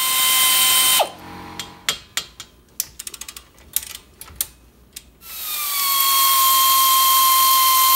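Pneumatic air ratchet running in two spells, a hiss of air with a steady whine, spinning out the front brake caliper bolts. Between the spells, about a second in to five seconds in, sharp metallic clicks and clinks as the ratchet and loosened parts are handled.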